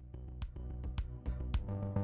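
Electronic background music with a steady beat, growing louder as it fades in.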